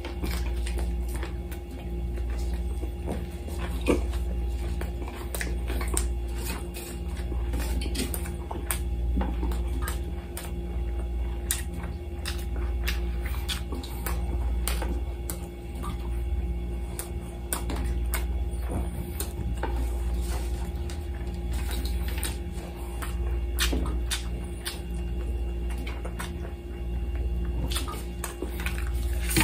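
Close-miked eating sounds: chewing and mouth smacks on lamb chops and rice, with scattered clicks and scrapes of food and a gloved hand on a glass plate, over a steady low hum.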